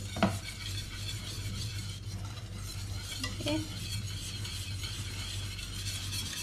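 Wire whisk stirring a thick black pepper sauce in a stainless steel pan as it cooks and sizzles on the stove. There are a few clinks of the whisk against the pan, the sharpest about a quarter second in.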